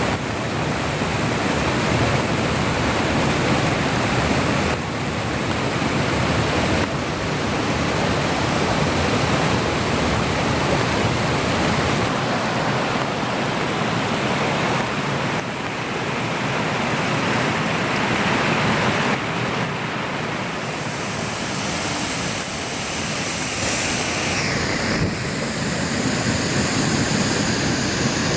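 Steady rush of falling water from Shiraito Falls, many thin streams pouring over a low rock face, its level shifting slightly every few seconds.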